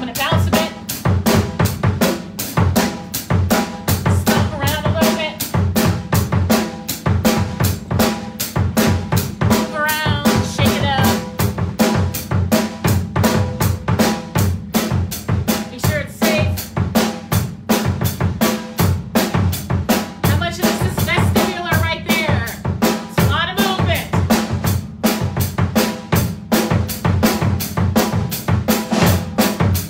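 Drum kit played hard in a fast, driving rock beat, with bass drum, snare and rimshots striking several times a second without a break.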